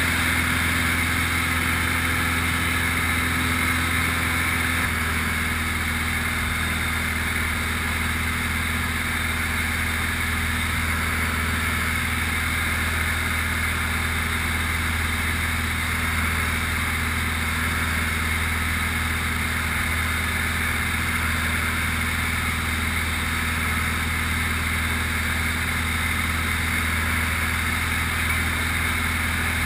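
Grob light aircraft's piston engine and propeller droning steadily, heard from inside the cockpit, with a slight shift in tone about five seconds in.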